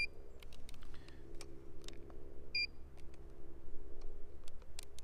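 Two short, high electronic beeps, one at the start and another about two and a half seconds later, with faint small clicks of handling between them.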